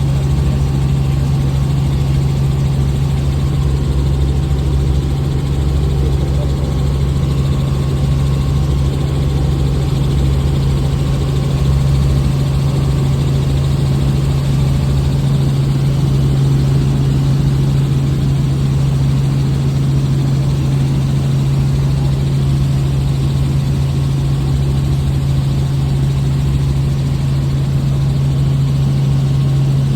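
Helicopter engine and rotor noise heard from inside the cabin: a loud, steady drone with a constant low hum that does not change.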